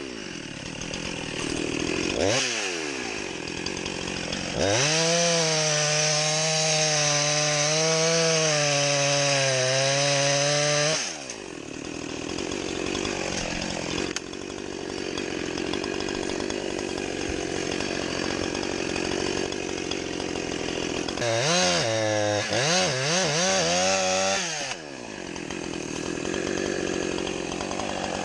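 Chainsaw with a quick rev about two seconds in, then about six seconds at full throttle, its pitch wavering as it cuts wood. It drops back to idle, and near the end the throttle is blipped several times.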